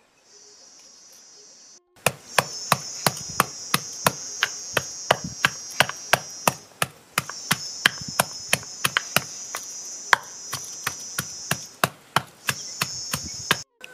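Wooden pestle pounding pineapple in a carved wooden mortar: sharp, regular wooden knocks about three a second, starting about two seconds in with a couple of brief pauses. A steady high insect trill runs behind.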